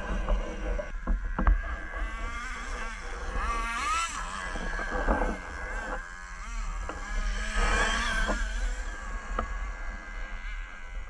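Small glow-fuel two-stroke engine of a 4WD nitro RC truck revving up and down as it drives, its whine rising and falling, loudest about four and eight seconds in.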